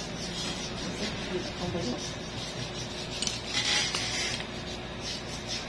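Small metal nail tool scraping and clicking against a toenail while an ingrown toenail is being cleaned out, with a short scraping sound about three and a half seconds in.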